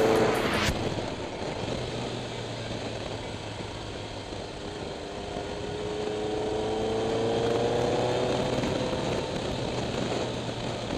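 Kawasaki ZRX motorcycle's inline-four engine heard from an onboard camera over steady wind rush. The revs drop sharply about half a second in, then the engine note climbs slowly as the bike accelerates, and eases off again near the end.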